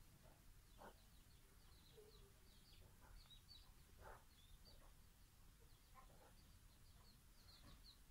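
Near silence, with small birds chirping faintly in the background: many short, quick, falling chirps throughout. Two soft clicks fall about one second and four seconds in.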